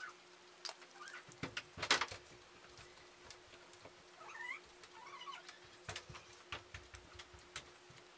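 Hands folding fresh pumpkin leaves into a parcel on a stone slab: crinkling and light taps, loudest about two seconds in. Two short wavering cries come through around four and five seconds in.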